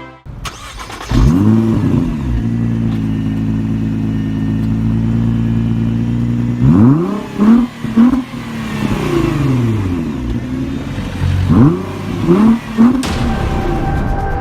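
Car engine starting up and settling into a steady idle, then revved in quick blips, a group of three about seven seconds in and another group near the end. It cuts off sharply into music.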